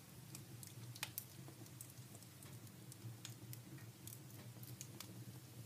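Wood fire crackling in a fireplace: faint, irregular small pops and snaps, with a sharper pair of pops about a second in, over a low steady hum.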